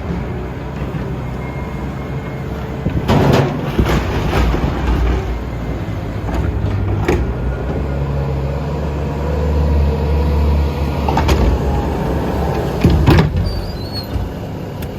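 Skid steer engine running steadily under load, with a clatter of knocks and bangs several times, the loudest a few seconds in and again near the end.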